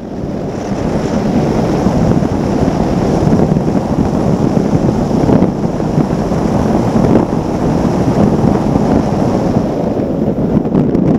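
Wind rushing over the onboard microphone of a Formula One tunnel-hull powerboat running at speed, mixed with the rush of water spray and the noise of its outboard engine, steady and loud throughout.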